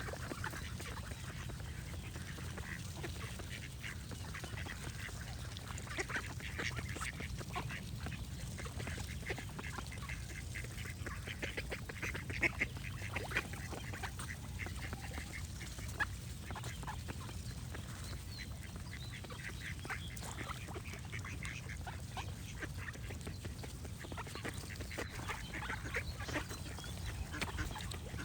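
Ducks quacking, short calls coming in clusters, with other birds calling and a steady low rumble underneath.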